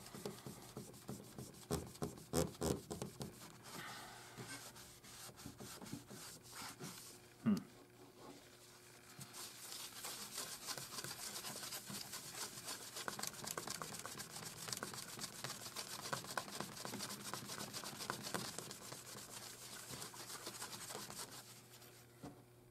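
Paper towel wet with cleaner scrubbed back and forth over the wooden playfield of a 1971 Bally Four Million B.C. pinball machine. Scattered handling clicks and a single thump come first, about seven seconds in. A steady rapid scrubbing starts about nine seconds in and stops shortly before the end.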